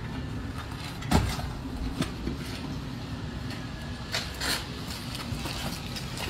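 Gas-fired crucible furnace burner running with a steady low roar, with a few short metallic clinks and scrapes from the tongs and lid.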